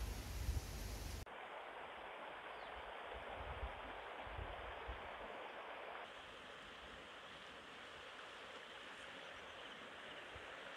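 Steady outdoor background hiss with no distinct events. It opens with a low rumble for about a second, then changes abruptly to an even, thinner hiss that drops slightly about six seconds in.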